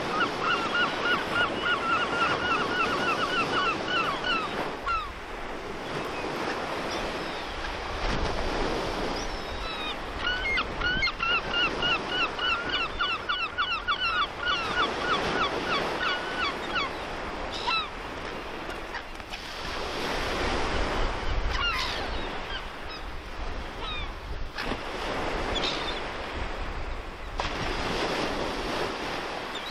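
Sea surf and wind along a sea wall, with a bird giving long runs of fast, evenly repeated calls, once at the start and again about ten seconds in. A low wind rumble on the microphone comes and goes in the middle.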